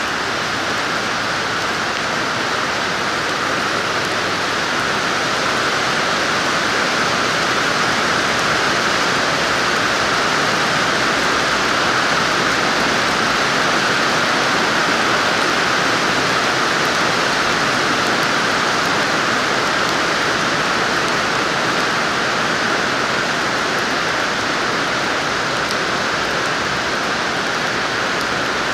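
Steady rain falling, a constant even hiss of drops with no let-up.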